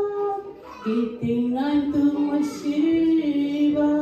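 A woman singing solo into a microphone, holding long, slow notes that step up and down in pitch. She takes a short pause just under a second in, then sings on.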